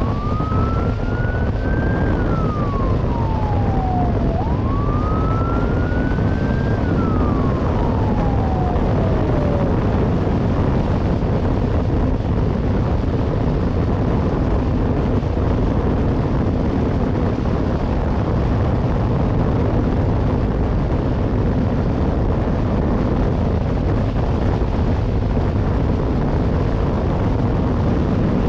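Police escort siren wailing in two slow rise-and-fall cycles, stopping about ten seconds in, over a steady loud rush of wind and motorcycle engine noise at road speed.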